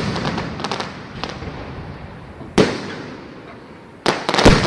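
Fireworks going off: sharp loud bangs a couple of seconds apart, with a patter of smaller crackling pops about a second in and a quick pair of bangs near the end, each bang trailing off in a rolling echo.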